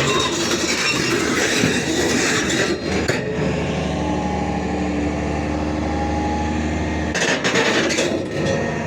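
Tracked excavator moving, its diesel engine running under dense metal clatter and rattling from the tracks; for a few seconds in the middle the clatter drops away to a steady engine note, then the clatter returns near the end.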